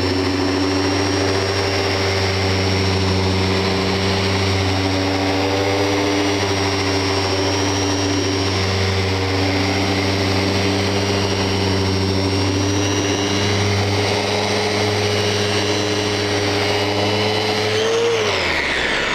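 Festool Rotex sander with its dust extraction hose attached, running steadily on hardwood with fine-grit abrasive. It gives a constant hum with a whine above it. Near the end it is lifted off and switched off, and its pitch falls as it winds down.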